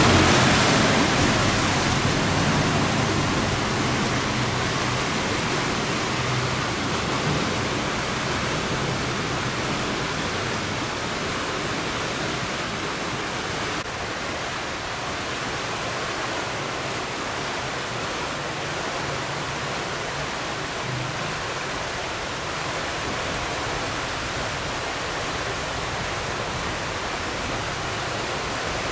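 Steady rush of water pouring through a sluice gate. A boat engine's low drone fades out over the first several seconds.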